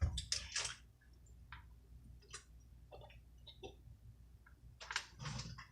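A person drinking: faint swallowing and mouth clicks scattered through, over a low steady rumble.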